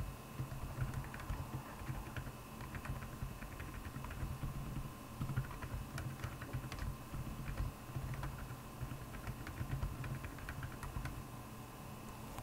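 Typing on a Royal Kludge R75 mechanical keyboard fitted with Akko Penguin silent tactile switches: a steady, uneven run of soft, low key presses.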